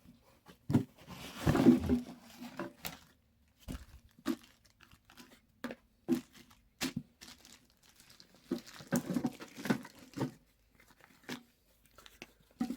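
Cardboard box and plastic bag crinkling and rustling in irregular bursts, with scattered light knocks and scrapes, as a small metal toolbox is slid out of its packaging.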